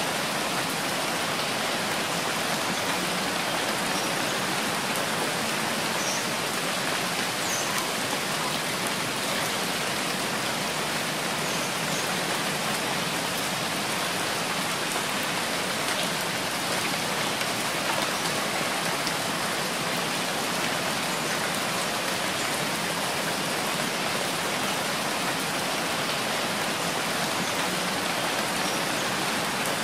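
Steady rain falling, an even hiss of many drops that holds unchanged throughout, with a few faint higher drop ticks.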